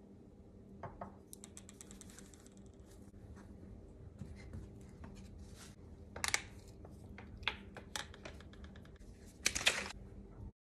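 Clicks, taps and light clatter of kitchen items being handled: a spice jar, a bag of hemp seeds and a plastic shaker cup being set down, picked up and opened. Louder clatters come about six, seven and a half and nine and a half seconds in, over a faint steady hum, and the sound cuts off suddenly at the end.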